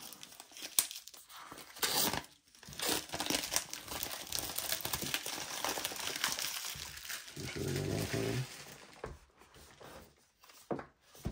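Plastic wrapping being torn and crumpled off a product box: a dense, crackling rustle with many small clicks, easing off near the end.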